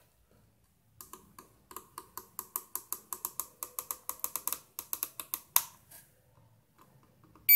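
Metal multimeter probe tip tapping from pin to pin on a motherboard, a run of light clicks about four or five a second. Right at the end the meter's continuity buzzer starts a loud steady beep: the crystal is connected to the clock generator IC.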